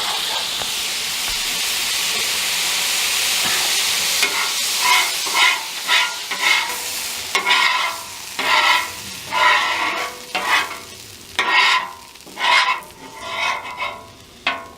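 Food sizzling on a Blackstone flat-top griddle, at first a steady hiss as just-added chicken broth steams the vegetables, then a spatula scraping and turning them on the hot steel in repeated strokes from about four seconds in.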